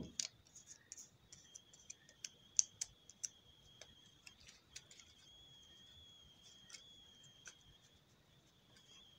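Small pieces of coloured paper handled and pressed down while being glued, giving faint, irregular clicks and taps, thickest in the first few seconds. A faint steady high-pitched whine runs underneath.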